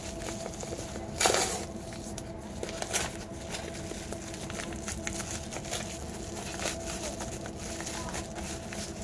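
Padded paper mailer being torn open by hand. There is a loud burst of tearing and crinkling paper about a second in, a shorter one about three seconds in, and light rustling and handling noises between, over a steady hum.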